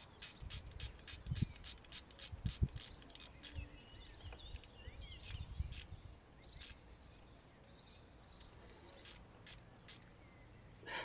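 Irregular sharp clicks and ticks, close together in the first few seconds and sparser later, with a few light low knocks early on and faint bird chirps about four to five seconds in.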